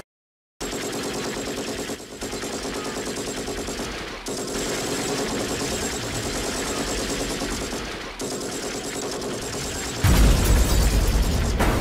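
Long rapid bursts of automatic machine-gun fire, broken by short pauses, then a loud, deep explosion boom about ten seconds in.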